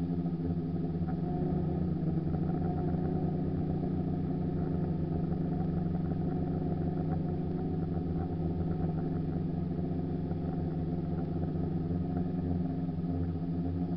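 DJI F450 quadcopter's brushless motors and propellers giving a steady multi-toned buzzing hum at an even throttle, with no rise or fall in pitch.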